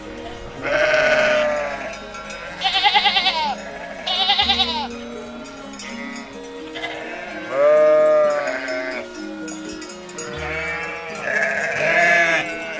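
Sheep bleating about six times, a few of the calls with a quavering tremble, over light background music.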